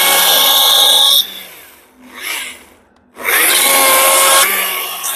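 Stihl MSA 140 C battery chainsaw cutting into wood in two bursts, with the electric motor's whine over the chain rasping through wood. The first cut stops about a second in and the saw spins down. After a short blip, the saw winds up again about three seconds in for a second cut, which fades out near the end.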